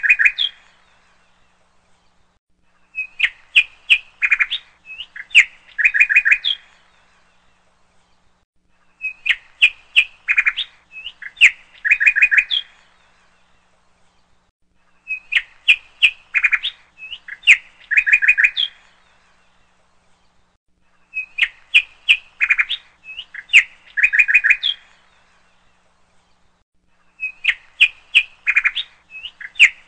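Small birds chirping, played as a loop: the same phrase of quick high chirps, about three seconds long, comes back every six seconds with a pause between.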